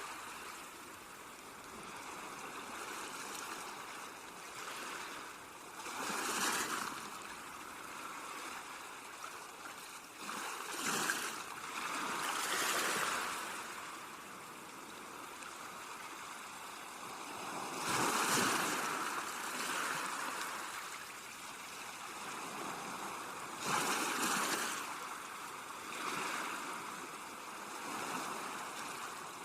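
Sea waves washing onto a beach, a steady rush of surf swelling into a louder surge every five to seven seconds.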